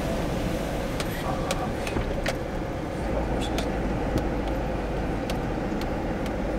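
A vehicle driving, with a steady engine and road rumble and scattered light clicks and rattles throughout.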